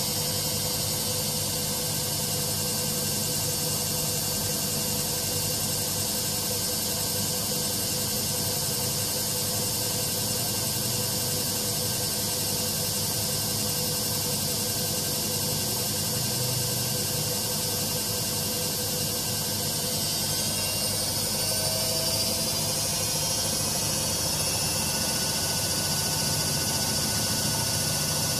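AEG Lavamat 6410 washing machine spinning, a steady motor whine and drum hiss; about 20 seconds in the whine rises in pitch as the spin speeds up.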